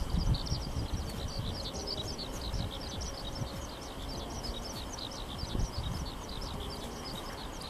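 A flock of small birds chirping together, a rapid, unbroken stream of short high chirps over a low background rumble.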